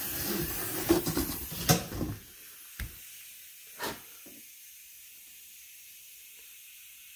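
Handling noise as a fiberglass car door panel is turned over: about two seconds of rustling with a couple of sharp knocks, then two single clicks. A steady faint hiss follows.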